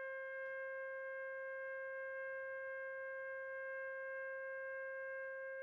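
Drone music: a single steady held tone with a bright row of overtones above it, unchanging throughout.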